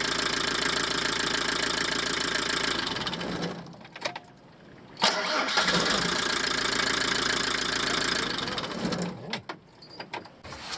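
Camper van engine with a newly replaced timing belt idling, then switched off about three seconds in. About a second and a half later it is started again and runs steadily before it is switched off near the end, followed by a few clicks.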